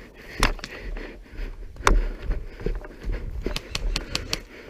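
Airsoft guns firing: a scattering of sharp snapping clicks at irregular intervals, closer together near the end.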